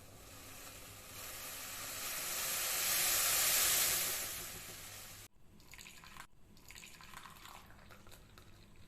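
Liquid being poured, a splashing hiss that builds for a few seconds, fades, and cuts off abruptly about five seconds in. Faint crackling follows.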